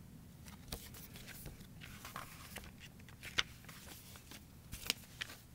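Paper picture-book pages being handled and turned: faint rustling and crackling with a few sharp clicks, the sharpest about three and a half and five seconds in.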